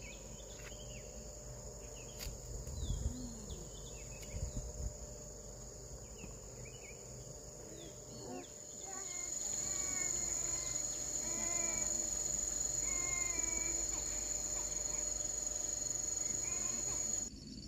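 Steady high-pitched buzz of insects, becoming louder about nine seconds in, with birds chirping over it in the second half. A couple of soft low thuds come in the first few seconds.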